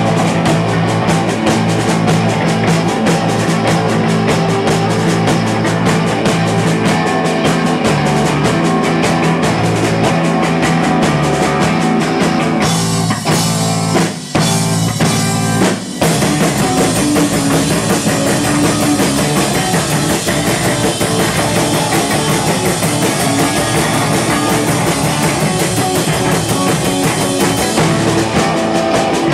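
Live rock band playing loud: two distorted electric guitars over a drum kit, with a couple of brief stop-start breaks about halfway through.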